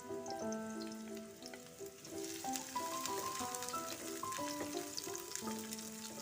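Food frying in oil in a pan: a crackling sizzle that grows louder about two seconds in, over background music playing a melody.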